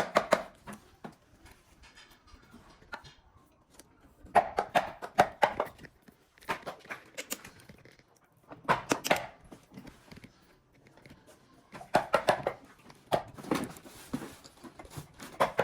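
Intermittent clusters of sharp knocks and clicks from hard parts being handled, separated by quieter stretches of room sound.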